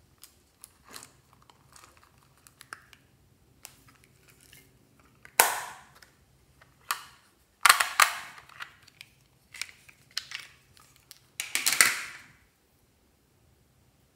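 Small plastic makeup cases being handled and snapped, a run of sharp plastic clicks and cracks, the loudest ones in the second half.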